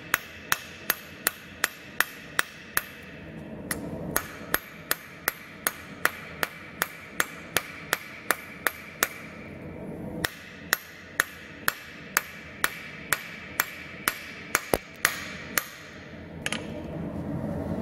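Hand hammer striking a red-hot steel knife blade on an anvil during forging: a steady run of blows, about two to three a second, each one ringing, with two brief pauses in the rhythm.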